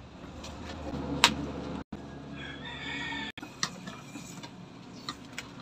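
Black vinyl electrical tape being pulled off the roll and wrapped around a wire splice: a crackly peeling noise with sharp handling clicks, the loudest about a second in. A faint animal call sounds in the background near the middle.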